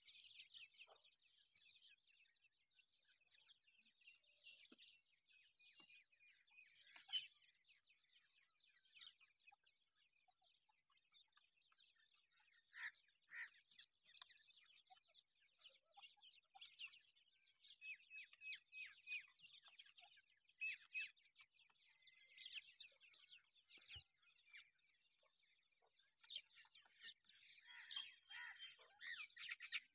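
Grey francolin chicks peeping: many faint, short, high-pitched cheeps, scattered at first and coming thick and fast from about twelve seconds in.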